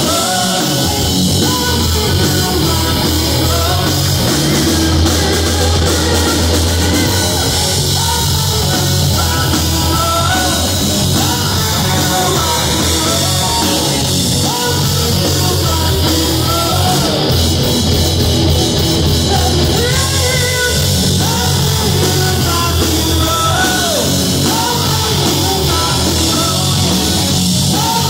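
Live rock band playing: electric guitar, drum kit and a male singer's voice, heard loud and close to the stage.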